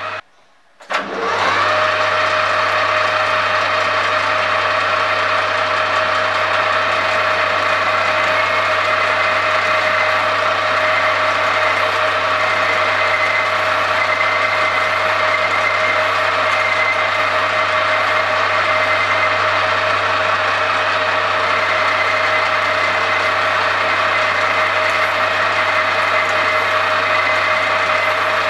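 Metal lathe running at a steady speed with a constant whine, a cutting tool working inside the bore of a small turned part. A brief gap near the start, then the machine sound carries on unchanged.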